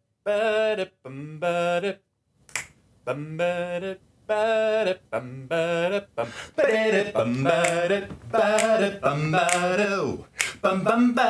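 Multitracked a cappella intro: one man's voice layered in several parts singing wordless held notes, with finger snaps keeping a steady beat from about two and a half seconds in. The singing grows fuller about six and a half seconds in as more voice parts join.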